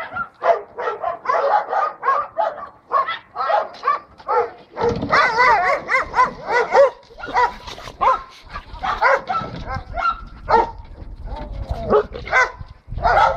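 A pack of dogs barking excitedly in rapid, overlapping barks as they are let out of a van for a walk, busiest around the middle.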